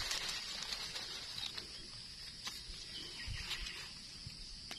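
Steady high-pitched insect drone, with scattered light clicks and rustles of dry eucalyptus leaf litter being handled.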